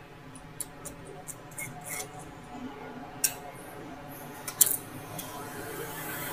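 Small, scattered clicks and taps of a tool and plastic parts inside an opened laptop as its battery is being disconnected, with two sharper clicks past the middle.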